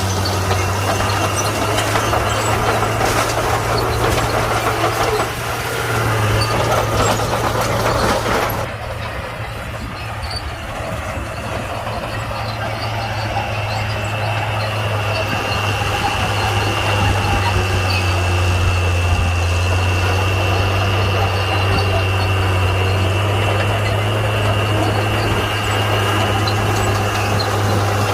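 Komatsu D41P crawler bulldozer's diesel engine running under work, a steady low hum with a rough, noisy din on top. About eight seconds in the din drops away abruptly and the engine settles, leaving a steadier hum with a high thin whine that slowly builds again.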